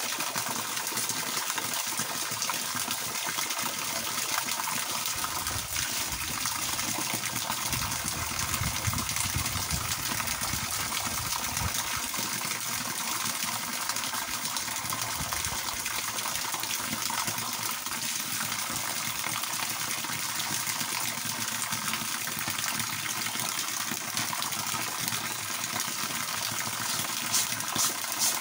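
Water pouring from a garden hose in a steady stream and splashing onto a person bathing under it and onto the ground.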